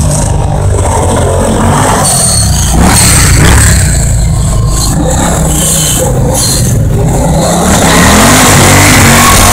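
Stock Victory bagger motorcycles' V-twin engines revving hard during burnouts, the pitch rising and falling with the throttle; loud, with a rising rev near the end.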